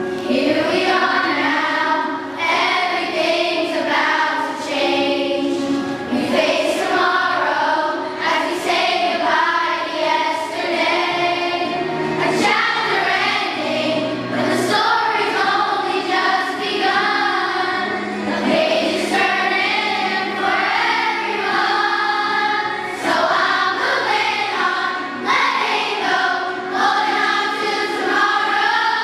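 A large children's choir of schoolchildren singing a song together.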